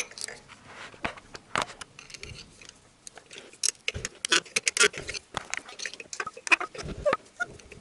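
Irregular metallic clicks and clinks of hand tools on a Honda D17A engine's cylinder head: a spark plug socket and wrench being fitted and worked to unscrew the spark plugs. The clicks come quickest a little past the middle.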